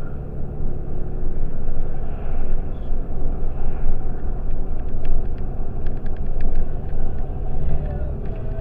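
Steady low road rumble of a car being driven, heard from inside the vehicle, with scattered light clicks in the second half.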